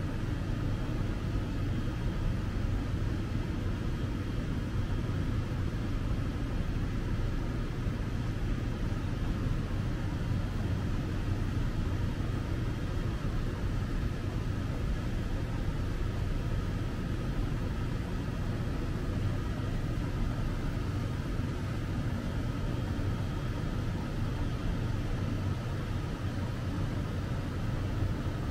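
Steady low rumble of city street ambience, mostly road traffic, with no single event standing out.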